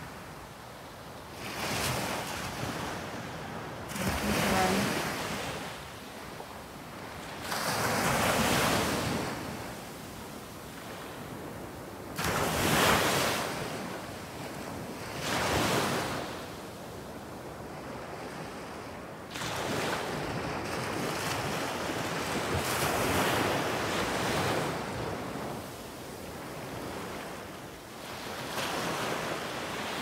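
Sea waves breaking on the shore, the surf swelling and falling away every three to four seconds, with some wind on the microphone.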